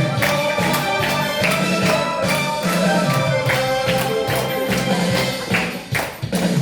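Instrumental break of a Korean trot song, with a steady beat, a held melody line and a repeating bass pattern, and no voice.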